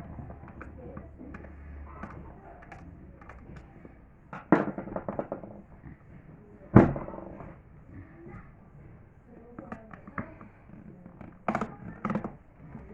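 Sharp knocks of hard objects: a rattling cluster about four and a half seconds in, one loud single knock about seven seconds in, and another cluster near the end.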